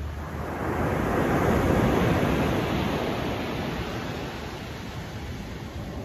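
Ocean waves breaking on a beach. The rush of surf swells up about a second in, peaks, and slowly fades, and the next wave starts to build near the end.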